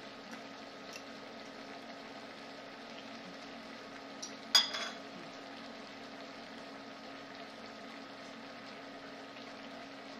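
Mushroom and kale sauce simmering in a pan on an induction burner, a steady low sizzle. About halfway through, one sharp clink with a short ring, as a metal fork is set down on a ceramic plate.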